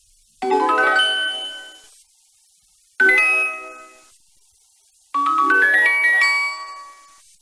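Baby Alive GloPixies Sammie Shimmer doll's electronic sound chip playing three short chime jingles in test mode, taken straight from its speaker by a pickup coil. Each jingle fades out, and the last is a rising run of notes.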